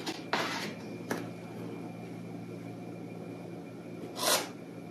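Palette knife scraping acrylic paint onto canvas in a few short strokes, the loudest near the end, over a faint steady low hum.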